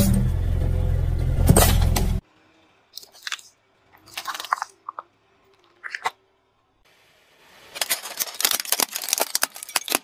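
A car tyre crushing a stainless-steel drip coffee filter, the metal giving with a couple of sharp cracks over a steady engine hum. After that, a few short soft pops and squelches as a small squeeze tube bursts under the tyre. From about eight seconds in, a dense run of rapid plastic crunching and cracking as a plastic toy breaks under the tyre.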